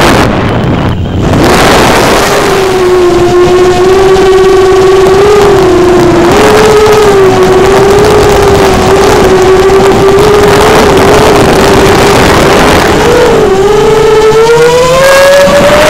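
Brushless motors and propellers of a 6-inch GEPRC Mark 4 FPV quadcopter, 2306.5 1777KV motors on a 4S battery, whining in flight. The pitch wavers up and down with the throttle, dips briefly about a second in, and climbs steadily near the end as the throttle is pushed up.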